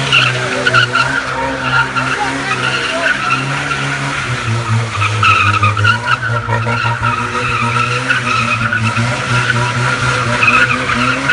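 A Tofaş Doğan SLX car's engine running steadily, with a wavering higher-pitched noise over it. The engine note drops slightly about four and a half seconds in.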